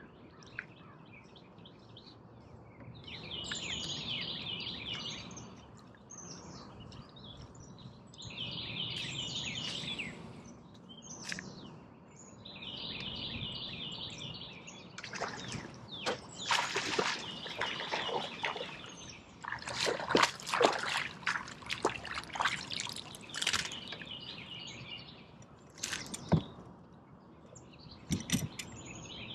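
A hooked largemouth bass splashing at the water's surface in a run of loud splashes about halfway through, followed by a couple of sharp knocks near the end. A songbird repeats a short, high, trilled song every few seconds.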